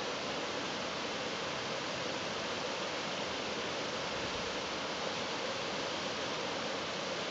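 Creek water pouring over a low rock ledge into a pool: a steady, even rush.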